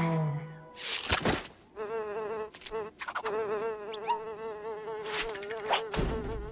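Cartoon sound effect of a fly buzzing in a wavering, pulsing drone, breaking off briefly about three seconds in. A short swish comes about a second in, before the buzzing starts.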